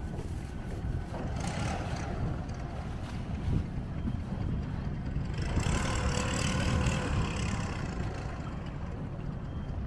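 Boat engines on the river, with a steady low rumble of wind on the microphone. A brighter engine sound swells for about two seconds past the middle, and a shorter one comes early on.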